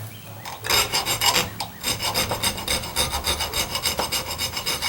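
Hand file rasping over the steel of a hand-forged carving knife blank in quick, even strokes, about four a second. The filing shapes the blank before it is hardened.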